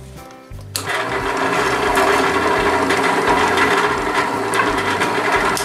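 Drill press running a 1¼-inch hole saw with pilot bit into a walnut board, starting about a second in and stopping abruptly near the end. It is a steady mechanical hum with a dense whirr over it.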